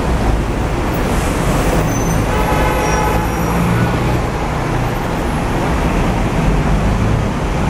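Steady low rumble of city street traffic and the tram, heard from the upper deck of a Hong Kong double-decker tram, with a short pitched tone about two and a half seconds in.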